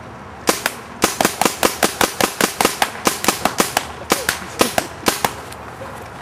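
Paintball marker firing a rapid volley of about thirty sharp shots, roughly six a second, starting about half a second in and stopping just after five seconds, with a brief pause near four seconds.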